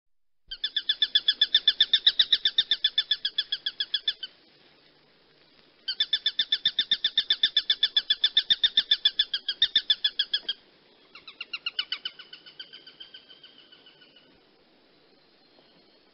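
A hawk giving a rapid chattering call, about nine sharp notes a second, in two long bouts of about four seconds each, then a shorter series that slows and fades.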